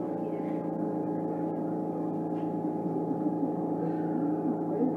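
Steady hum of several held tones from the Tama Toshi Monorail 1000 series car's motors and electrical equipment, heard from on board and even in level throughout.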